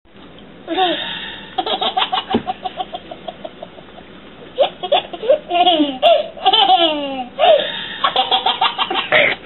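A baby laughing hard: runs of quick, repeated chuckles, with long high-pitched squealing laughs that rise and fall in the middle, then more chuckles near the end.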